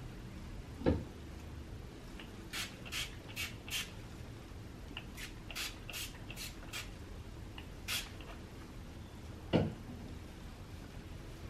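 A hairbrush being pulled through a section of product-coated hair: a dozen or so short, quick rasping strokes in the middle. A dull thump about a second in and another near the end are the loudest sounds.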